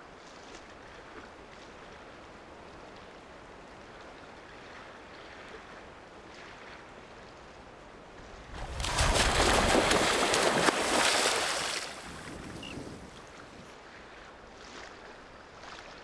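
Soft water-and-wind ambience, then about three seconds of loud water splashing and churning about eight and a half seconds in, as an estuarine crocodile lunges from the shallows to seize bait.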